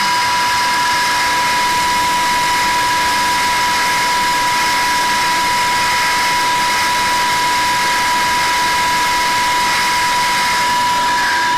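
18.5 kW Tesla disc sand pump running steadily at about 2,900 rpm: a loud, even machine noise with a constant high whine.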